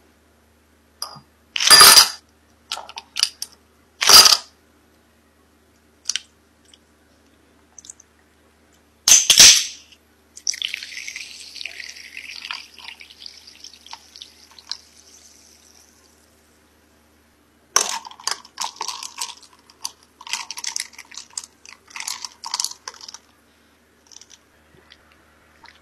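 Kitchen food-prep sounds: three loud, sharp knocks in the first ten seconds, then a stretch of water splashing, then scattered light clatter.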